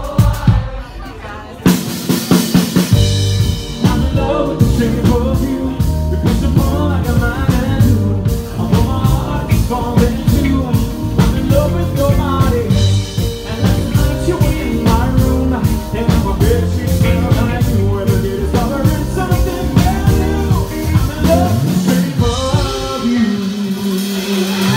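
Live pop band playing: drum kit, bass, guitar and keys, with a male and a female singer. The full band comes in about two seconds in after a short break, and near the end the drums drop out, leaving held notes.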